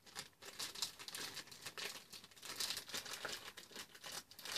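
Toy tea set packaging crinkling as it is unwrapped by hand, in quick, irregular rustles.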